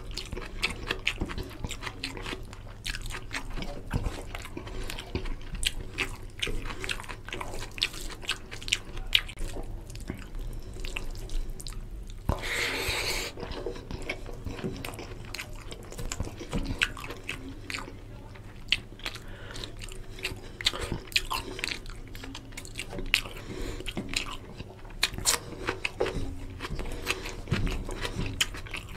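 Close-up eating sounds: wet chewing and lip smacks of rice and chicken curry eaten by hand, with soft squelching as fingers mash rice into the curry on a steel plate. A louder, hissier rush lasts about a second a little before halfway.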